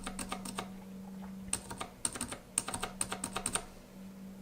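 A Zilent V2 65-gram silent tactile mechanical keyboard switch in a switch tester, pressed over and over in quick runs of soft, muted clicks with short pauses between.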